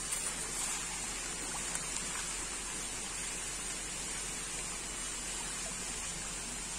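Steady splashing and churning of water as a dense mass of Nile tilapia crowds and thrashes at the pond surface.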